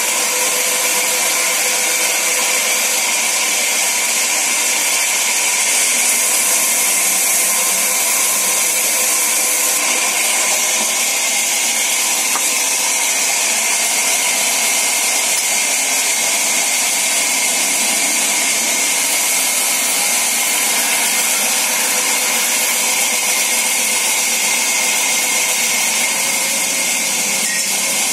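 Sawmill vertical band saw running and cutting through timber: a loud, steady, high-pitched rushing noise with a thin whine held throughout.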